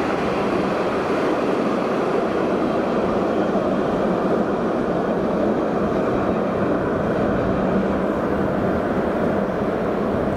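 Alstom Citadis 402 tram running past on street track: a steady, even running noise of wheels on rail and traction gear.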